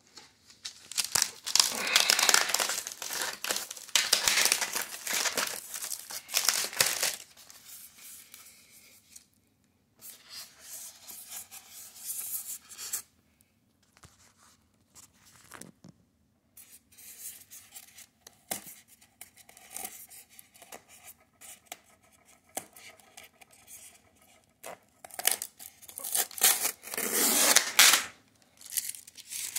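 Packing materials being handled: plastic wrap crinkling and tearing and styrofoam inserts rubbing and scraping. The handling is loud from about a second in to seven seconds in and again near the end, with quieter scattered rustles in between.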